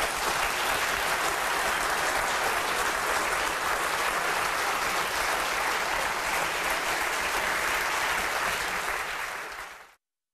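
Theatre audience applauding steadily, a full house clapping together; the applause fades out near the end.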